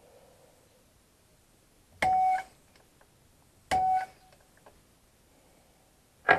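Two sharp metallic strikes about two seconds apart, each ringing briefly: a center punch marking a broken stud on a small two-stroke strimmer engine ahead of drilling. A sharper knock near the end.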